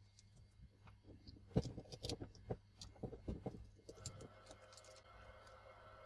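Faint, scattered light clicks and knocks of small hard parts being handled and set down, with no steady rhythm.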